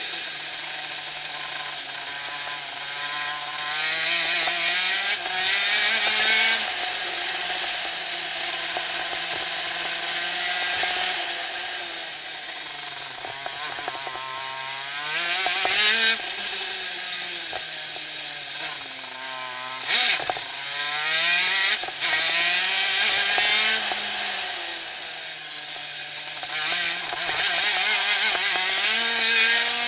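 Shifter kart engine heard onboard, its pitch climbing under acceleration and dropping back again and again as the kart shifts gears and slows for corners. A sharp knock sounds about twenty seconds in.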